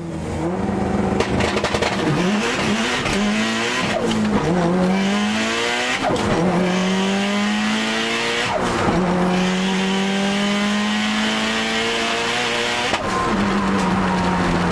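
Car engine at full throttle accelerating through the gears, its pitch climbing steadily and then dropping sharply at each of four upshifts.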